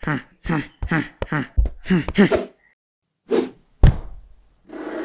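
A cartoon voice babbling short nonsense syllables, two or three a second, then a heavy thud about four seconds in as the cartoon character lands flat on the floor, followed by another short vocal sound near the end.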